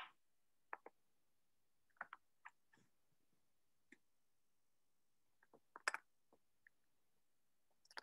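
Slow, irregular typing: faint scattered key clicks against near silence, some in quick pairs, with a small cluster of taps about six seconds in.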